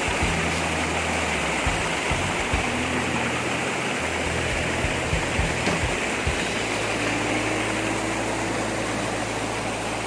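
River water rushing steadily down a rocky cascade of boulders into a pool: a waterfall's constant, loud splashing rush.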